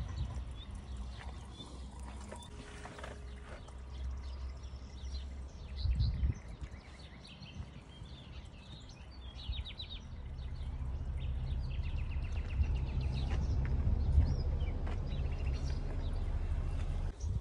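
Outdoor ambience: small birds chirping in short high trills over a steady low rumble, which grows louder about ten seconds in.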